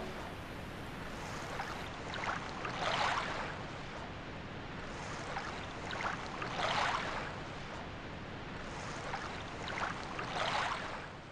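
Ocean surf: a steady rushing hiss of breaking waves that swells three times, a few seconds apart, and fades out at the end.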